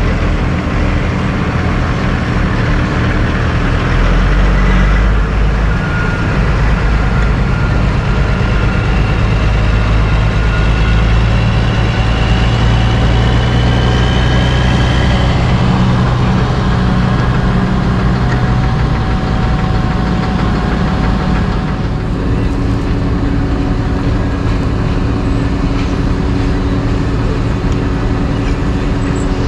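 Heavy diesel engines of dump trucks and an asphalt paver running together. A loaded tandem-axle dump truck drives past close by, its engine getting louder from about four seconds in and rising in pitch as it pulls through, then easing off after about twenty seconds.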